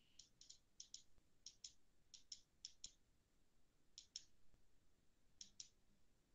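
Faint computer mouse clicks, about eight quick double clicks (press and release), coming irregularly as presentation slides are clicked through one after another.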